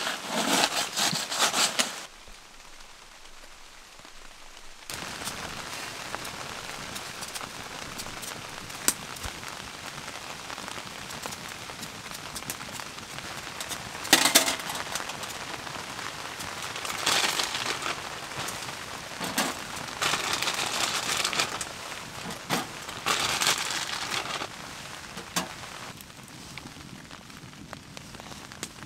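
A gloved hand brushes snow off the top of a small wood stove, briefly and loudly. Then a wood fire crackles steadily inside the stove, with a few louder bursts of metal handling as a wire grill is set on top.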